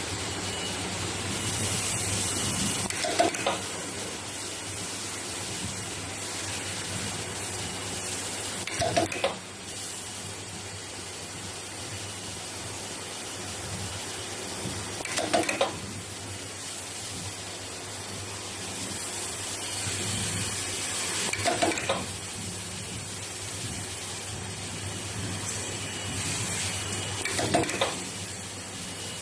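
Semi-automatic hair clip assembly machine running: a steady hum from its vibratory bowl feeders, and about every six seconds a short mechanical clack as the pin press cycles, five times in all.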